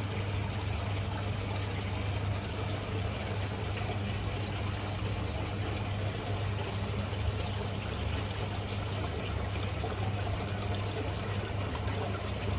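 Aquarium filter pump running: a steady trickle of water with a low hum underneath.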